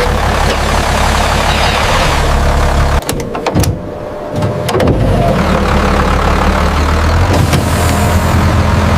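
Bulldozer engine running steadily. About three seconds in it drops away for a couple of seconds, with a few sharp clicks or clanks, then runs again.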